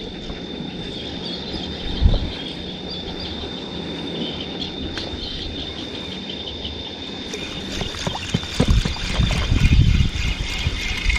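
Wind rumbling on the microphone over water lapping around a small inflatable boat at sea, with a faint steady high tone throughout. The wind gusts pick up strongly in the last few seconds.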